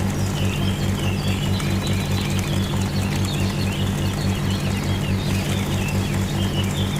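A small engine running steadily with an even chugging pulse, about five beats a second, while birds chirp.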